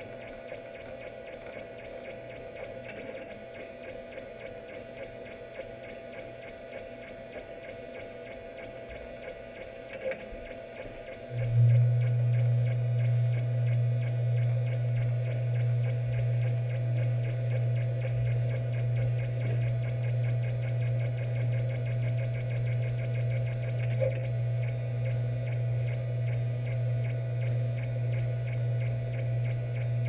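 3D printer running, with a steady whine from its motors. About eleven seconds in, a much louder low hum starts suddenly and holds, pulsing slightly.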